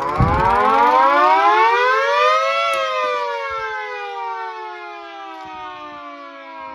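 Small model 2T siren winding up: its pitch rises quickly for nearly three seconds, then it winds down slowly with the pitch falling. A low thump comes right at the start.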